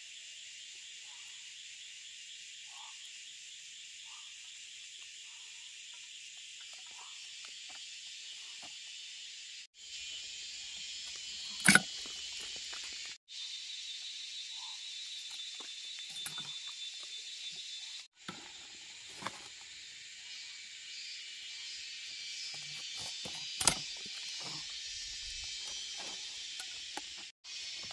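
Steady chorus of insects chirring, high-pitched and continuous, dropping out abruptly for an instant a few times. Two sharp knocks stand out, one about twelve seconds in and one near twenty-four seconds, with a few fainter clicks.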